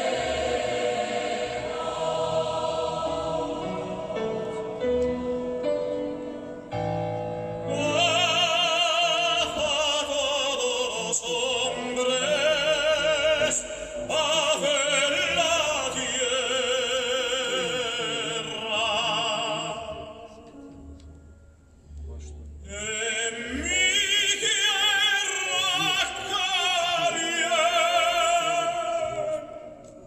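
Recorded operatic singing with strong vibrato over accompaniment, played back through a hi-fi system of Blumenhofer Classic 1733 loudspeakers and Trafomatic tube amplifiers. The music is quieter and more ensemble-like at first, and a solo voice comes in strongly about eight seconds in. The voice fades out about two-thirds of the way through and returns a couple of seconds later.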